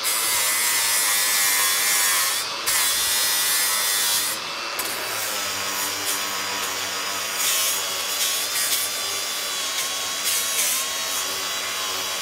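Hilti AG 4S-A22 brushless cordless angle grinder with a Hercules grinding wheel grinding a steel tube smooth, a continuous harsh grinding over the motor's steady whine. The grinding eases briefly twice in the first five seconds as the wheel lifts off the metal. The surface is being dressed ready for welding.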